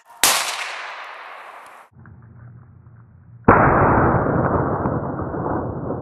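Two rifle shots about three seconds apart, each a sharp crack followed by a long echo that dies away through the forest.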